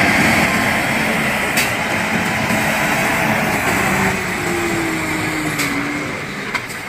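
Mercedes-Benz Actros logging truck with a loaded log trailer driving past on a gravel road: its diesel engine running steadily with tyre and road noise, getting a little quieter near the end as the trailer goes by.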